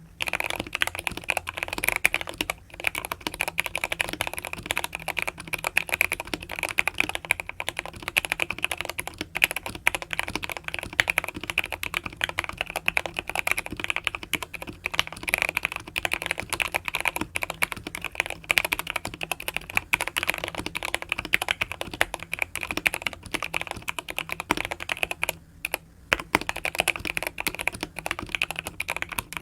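Continuous typing on a NextTime 75 mechanical keyboard with Gateron Yellow linear switches, tape-modded and PE-foam-modded. Dense, rapid keystrokes with brief pauses, one about two and a half seconds in and a couple near the end.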